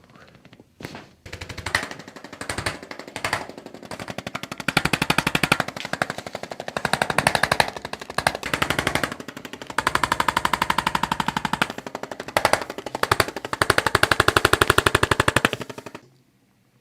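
A handheld percussive treatment tool hammering rapidly and evenly against the body, a fast mechanical rattle. It starts about a second in, grows stronger a few seconds later, dips briefly twice and stops abruptly near the end.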